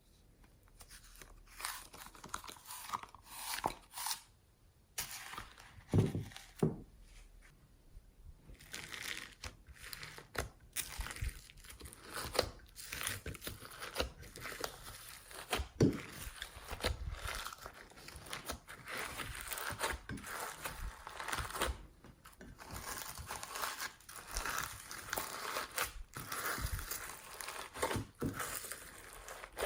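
Hands kneading, stretching and pressing slime: a dense, irregular run of sticky crackles and small clicks, with a few louder wet pops, the loudest about six seconds in and again near the middle.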